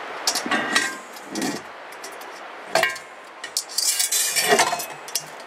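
Metal parts of a Weber Smokey Joe grill being handled during assembly: several bursts of clinking and knocking metal, some with a brief ring.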